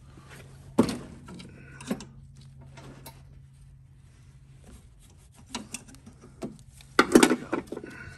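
Metal pliers clicking and knocking against a hose clamp and rubber fuel line on a lawn mower engine, a few separate knocks with quiet between. Near the end comes a louder clatter as the pliers are set down on the mower deck.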